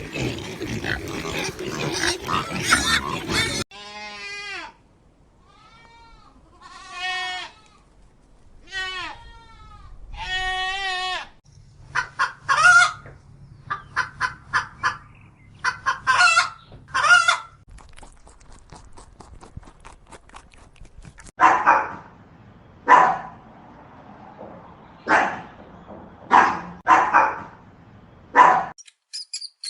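A run of farm animal calls, chiefly goat bleats: several long wavering bleats, then a quick series of short calls. Near the end come about seven short, harsher calls.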